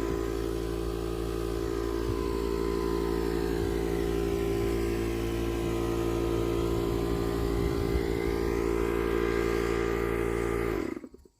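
A machine running at a constant speed, with a steady pitched hum, cutting off abruptly near the end.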